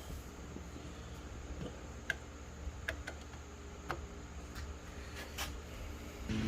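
Quiet room tone with a low steady hum, broken by a handful of light scattered clicks and taps from shifter parts being handled.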